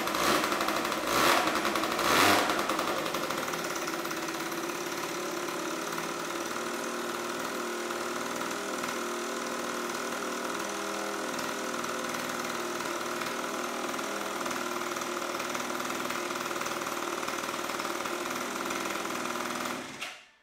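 MBK Booster scooter's two-stroke engine, running for the first time on a new Airsal 70cc cylinder with a Stage6 exhaust. It is blipped twice with the throttle in the first few seconds, then idles steadily, and stops abruptly near the end.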